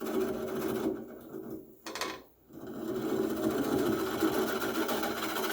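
Wood lathe turning slowly while a turning tool cuts into a tamarack bowl blank, a steady mechanical drone with scraping hiss. The cutting sound falls away for about a second and a half around two seconds in, with a short click, then resumes.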